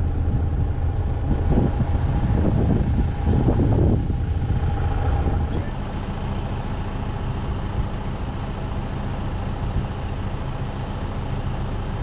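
White 1210 corn sheller running and shelling cob corn, together with the tractor engine beside it: a steady mechanical drone. It is louder and rougher with rattling in the first four seconds or so, then evens out into a steadier hum.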